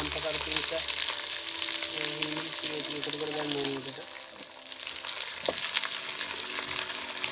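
Sliced chillies, onions, garlic and curry leaves sizzling and crackling in hot oil as a tempering fries, with a spatula stirring them in the pan and one sharp knock a little past halfway.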